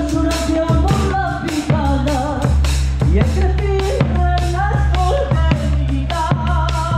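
Live folk-rock band playing: drum kit and a bombo legüero keep a steady beat under bending melody lines and singing.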